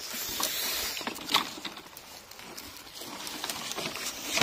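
Dry bamboo wood and leaf litter rustling and knocking as bamboo poles are gathered up by hand, with a few sharp knocks between them.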